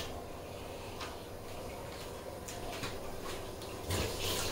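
Chilli paneer sauce heating toward the boil in a wok over a gas burner: a quiet steady hiss with a few faint ticks of bubbles. About four seconds in, a louder rushing hiss comes in.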